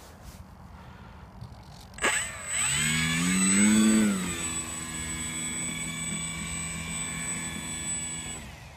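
E-flite Maule M7 RC plane's electric motor and propeller: it starts suddenly about two seconds in, its pitch rises and dips, then it holds a steady hum with a thin high whine above it, winding down near the end.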